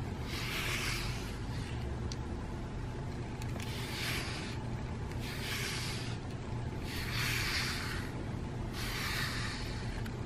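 A grooming brush swept through a cat's fur in repeated strokes: about five soft swishes, one every one and a half to two seconds.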